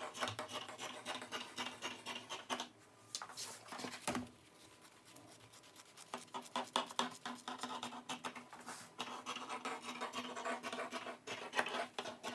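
Large tailor's scissors snipping through pattern paper along a pencilled cutting line: a dense run of crisp cuts with paper rustling. The cutting pauses briefly about three seconds in and again from about four to six seconds in.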